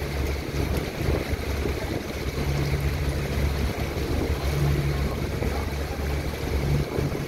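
Motorboat engine running with a steady low hum, under the rushing of water breaking and foaming along the hull as the boat moves.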